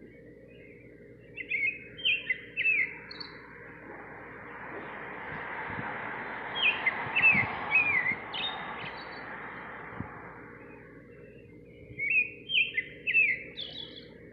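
Nightingale singing: three short phrases, each of three or four quick downward-slurred whistled notes, about five seconds apart. A broad rushing background noise swells and fades under the middle phrase.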